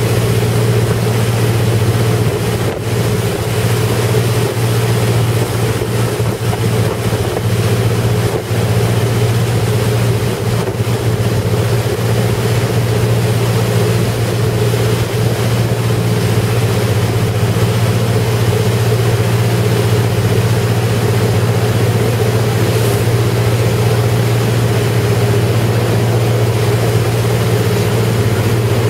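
Motorboat engine running hard at a steady pitch, with water rushing past the hull and wind noise over it.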